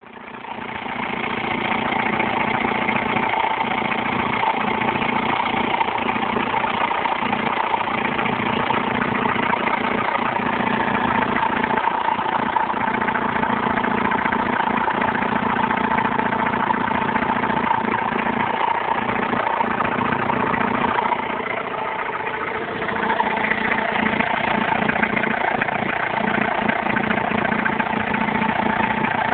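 Alfa Romeo 156 1.9 JTD four-cylinder common-rail turbodiesel idling steadily, with a steady whining tone over the engine that the owner puts down to the accessory belt. The level dips slightly for a couple of seconds about two-thirds of the way through.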